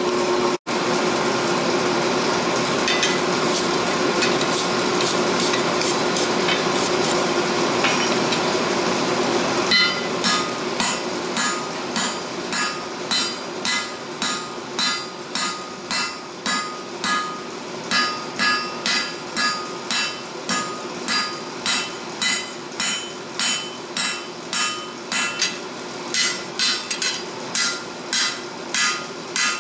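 Hammer blows on hot steel at the anvil, struck evenly about one and a half times a second with a metallic ring, starting about a third of the way in. Before that a steady roar with a few light taps, which carries on under the hammering.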